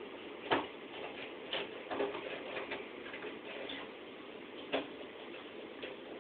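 Irregular light clicks and taps over a faint steady hiss, the sharpest about half a second in and another near the end, with a small cluster in between.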